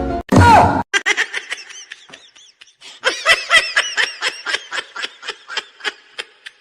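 High-pitched laughter in rapid, repeated pulses, several a second, growing louder partway through, after a brief sliding tone right at the start.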